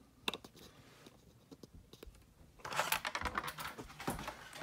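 Small clicks and taps of handling noise: a few sharp single clicks near the start, then a dense clatter of clicks and rustling about three seconds in.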